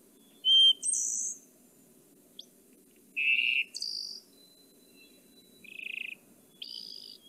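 Recorded wood thrush song: about four short, separate song phrases a second or two apart, the first two each a lower note followed by a higher, thinner trill, over a faint steady hum.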